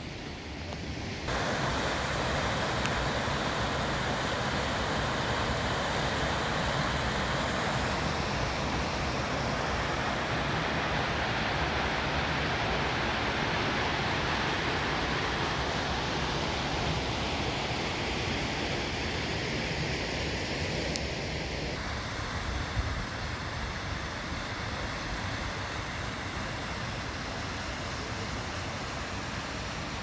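Steady rushing of water in a rocky canyon. It sets in suddenly about a second in and turns a little quieter and thinner about 22 seconds in.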